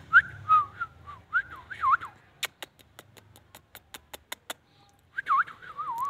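Indian ringneck parrot whistling in swooping, warbling notes, broken in the middle by a quick run of about ten sharp clicks, then whistling again near the end.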